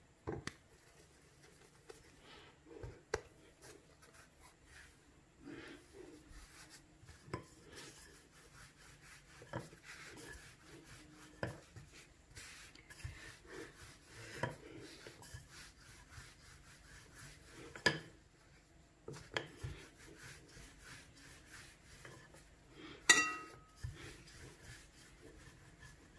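Wooden rolling pin rolling out dough on a countertop: soft rubbing and scraping with scattered light knocks of the pin. Near the end comes one sharper clack with a brief ring.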